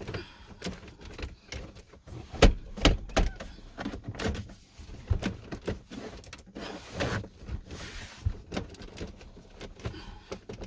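Plastic center console trim being handled, pressed and snapped into place: an uneven run of clicks and knocks, the loudest a few sharp knocks about two and a half to three seconds in.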